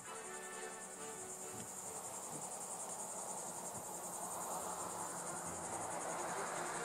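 Steady high-pitched insect trill, finely pulsing, with a soft rushing noise building toward the end.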